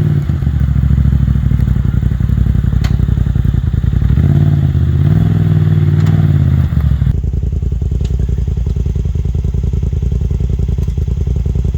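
Side-by-side UTV engine running on the trail, its pitch rising and falling as the throttle is worked, with a few sharp knocks from the vehicle. About seven seconds in it becomes a duller, steadier drone.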